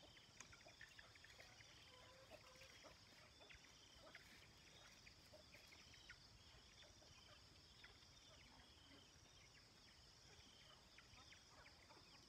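Near silence: faint outdoor ambience with a steady high hiss and many short, faint high chirps scattered throughout.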